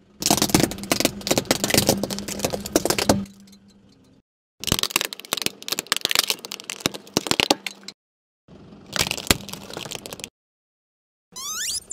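Hollow plastic toy fruits cracking and crunching under a rolling car tyre, in three bursts of dense snapping separated by short silences.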